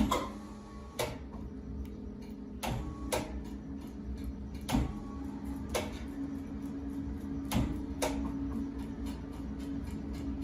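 Large wood lathe running with a steady hum, broken by sharp knocks at uneven intervals, roughly one a second.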